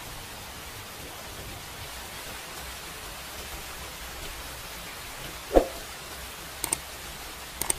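Steady hiss of background noise, with one sharp knock about five and a half seconds in and a few faint clicks near the end.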